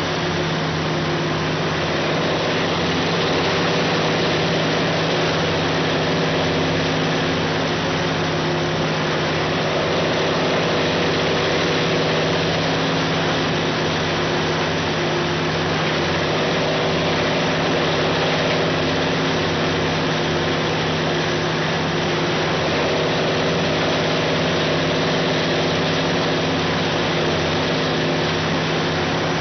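Diamond Z DZT8000TKT tub grinder running steadily while stumps and logs sit in its tub, the heavy diesel engine giving a constant loud drone with a slight slow rise and fall in its upper tones.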